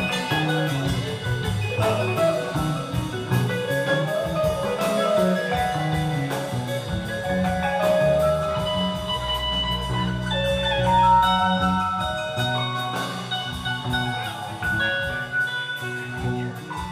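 Live band playing an instrumental passage: guitar and keyboards carrying the melody over electric bass and a steady drum-kit beat.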